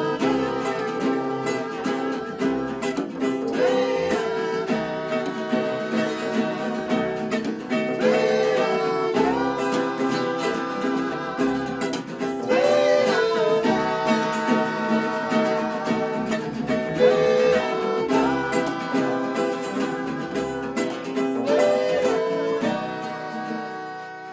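Background music, a song on acoustic plucked strings in phrases that repeat every few seconds, fading out near the end.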